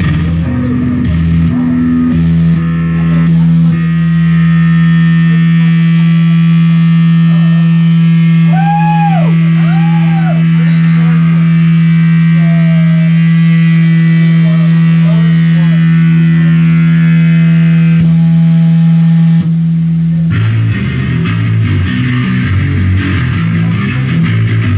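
A live band's amplified instruments hold one loud, steady low drone note, with a few short swooping pitch glides above it around a third of the way in. Near the end the drone stops and the band breaks into a choppy, rhythmic rock part.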